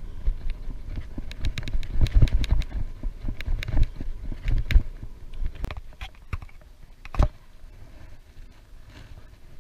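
Bicycle rattling and knocking over a bumpy lane, with wind rumbling on the microphone. The knocks are irregular and close together, with a sharper knock about seven seconds in, then it goes much quieter for the last two seconds.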